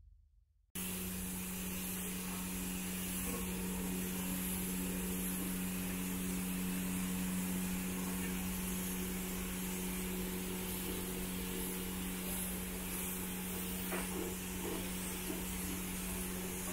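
Steady machine hum with a constant hiss, starting abruptly under a second in and holding level, with a few faint clicks near the end.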